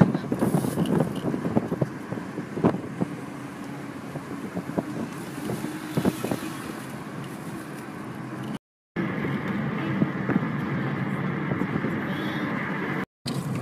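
Car road and engine noise heard from inside the cabin while driving at around 30 mph, with scattered clicks and knocks in the first half. The sound drops out briefly twice.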